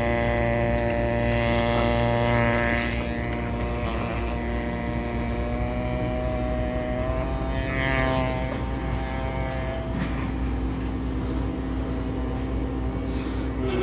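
Steady hum of a running motor with several held tones over a low drone, as from a dust-extraction vacuum at a fossil-preparation bench. A few brief, buzzy higher bursts come and go.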